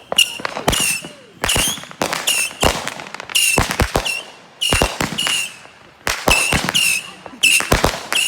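Missile battery firing: a rapid string of missiles, each a short shrill whistle, about one and a half to two a second, mixed with sharp cracks and pops.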